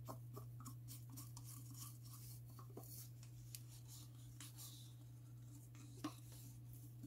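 Faint scraping and light ticks of a thin wooden stick against the inside of a plastic cup as the last of a liquid is scraped out, with a sharper click about six seconds in, over a steady low hum.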